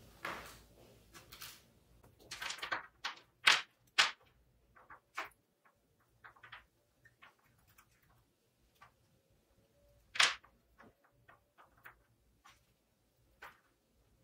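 Small steel drill-chuck jaws and a coil spring handled by hand on a wooden bench: a scattered run of light metal clicks and taps, with a few sharper knocks about three to four seconds in and one about ten seconds in.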